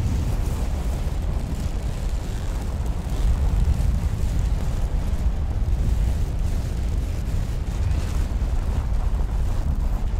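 Fire sizzling, a steady noise with a deep rumble underneath.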